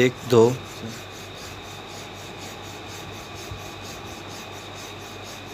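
A stick of licorice root (mulethi) being rubbed briskly back and forth on a flat grinding stone in a steel bowl of water. It makes a steady, evenly repeated wet scraping, one stroke after another, as the root is ground into the water.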